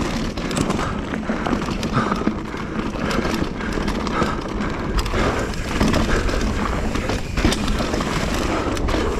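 Mountain bike ridden fast down a dirt singletrack: tyres running over the dirt, with a steady stream of clicks and clatters from the chain and bike rattling over the rough trail, and wind rumble on the helmet camera's microphone.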